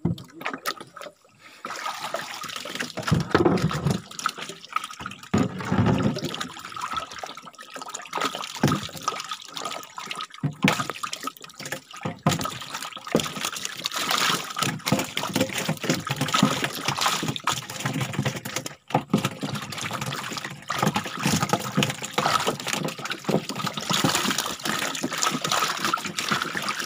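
Water splashing and sloshing in a boat's flooded fish hold as hands work through it, with live snakehead fish thrashing in the shallow water. The splashing goes on almost without a break, a busy run of small irregular splashes.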